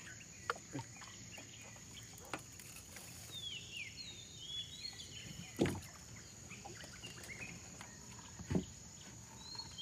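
Quiet riverside ambience: a steady high insect drone, birds calling with short whistled glides in the middle and again near the end, and a few soft knocks, the loudest just past halfway and near the end.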